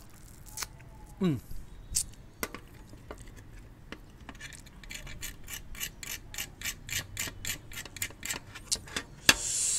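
A needle picking and tapping along the pressed outline of a brittle baking-soda sugar candy (dalgona) to break out the shape: small sharp clicks, a few scattered at first, then a steady run of about four a second in the second half. A short falling tone about a second in and a brief hiss near the end.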